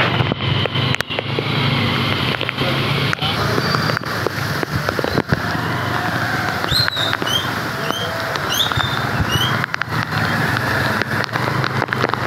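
Rain and traffic on a wet town street, a steady wash of noise with a low hum under it. Many sharp taps, like raindrops hitting close to the microphone, run through it, and a short run of high chirps comes about halfway through.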